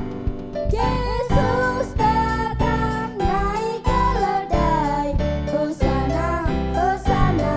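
Three children singing an Indonesian Christian praise song into microphones over instrumental backing music with a steady beat.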